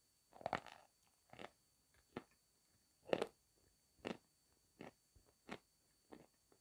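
Close-miked chewing of something crunchy, about eight crisp chews roughly one every three-quarters of a second, the first and the fourth the loudest.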